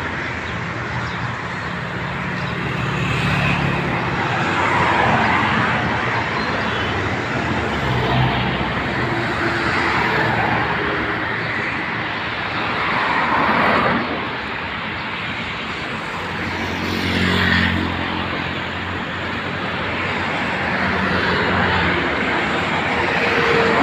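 Road traffic: a steady din of passing vehicles, with an engine hum and several slow swells as vehicles go by.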